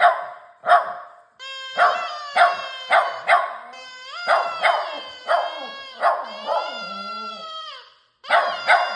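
Puppy barking and howling: a run of sharp yaps, then a drawn-out howl with yaps breaking into it. The howl slides down in pitch and breaks off near the end, then starts up again.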